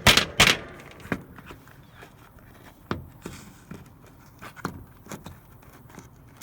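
Kitchen timer being handled: a run of sharp, evenly spaced clicks about three a second stops about half a second in, then scattered light clicks and taps follow.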